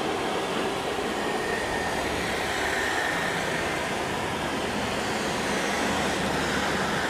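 Jet engine noise from a Boeing 777-300ER's GE90 turbofans during take-off: a steady rush with a faint high whine over it.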